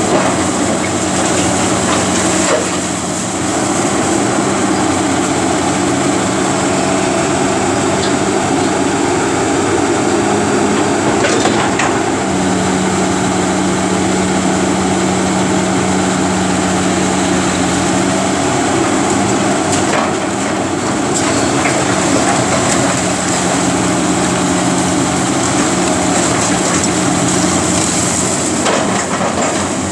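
Caterpillar 330B hydraulic excavator's diesel engine running steadily under load as it works its demolition bucket and thumb against a brick wall, with a few sharp knocks of brick and debris being struck and falling.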